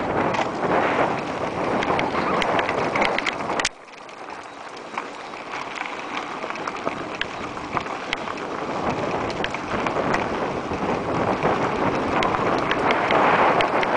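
Mountain bike descending a rocky dirt trail: wind rushing over the camera microphone, with tyre crunch and scattered clicks and rattles from the bike over rough ground. The noise drops off abruptly about four seconds in, then builds back up steadily as speed picks up again.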